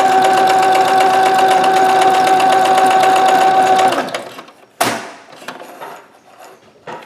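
Singer Ingenuity electric sewing machine running at speed and stitching through fabric: a steady motor tone with a fast, even needle clatter, stopping about four seconds in, followed by a few light clicks. It is sewing normally with its hook timing readjusted.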